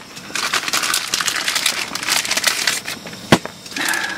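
Plastic bag crinkling and rustling as jars are taken out of it, with a sharp knock about three seconds in as a jar is set down on a cooler lid.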